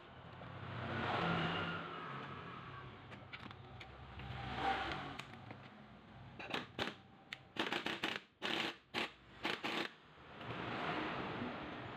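Pneumatic impact wrench tightening the centre nut on the top of a freshly assembled strut, fired in a run of about eight short bursts from about six and a half seconds in. Before that come softer swells of noise as the coil-spring strut and its upper mount are turned by hand.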